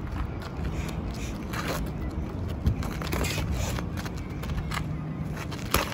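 Sneakers shuffling and scuffing on asphalt during boxing sparring, with a few sharp thuds of boxing gloves landing, the loudest about a third of the way in and near the end, over a steady low rumble.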